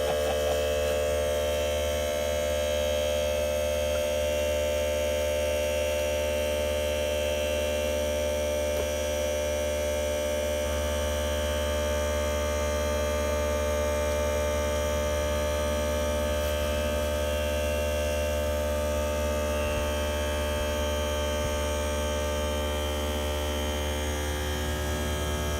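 Steady machine hum from an electric motor running without a break, growing a little stronger in its low tone about ten seconds in.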